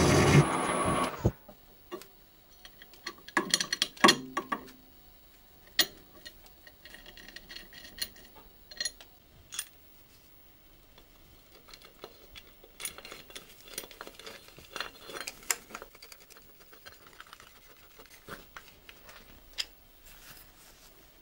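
End mill turned by a TV-7M school lathe cutting a metal workpiece, the cutting noise stopping abruptly about a second in. Afterwards only scattered light clicks and knocks, the sharpest about four seconds in.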